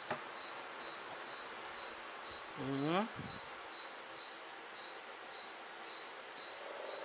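A steady high-pitched whine with a fainter pulsing note about three times a second, and a brief voiced hum about three seconds in.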